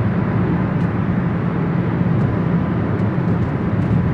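Steady road and engine noise inside the cabin of a moving car: an even, low hum with no breaks.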